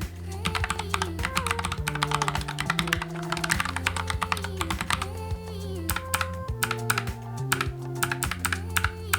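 Typing on a NuPhy Air75 low-profile mechanical keyboard fitted with Gateron switches: brown on most keys, red on Esc and blue on Delete. Fast runs of key clicks with a couple of short pauses.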